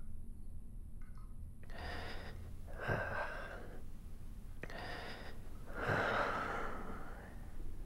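A man breathing heavily: two deep breaths about three seconds apart, each a sharp in-breath followed by a louder, longer out-breath.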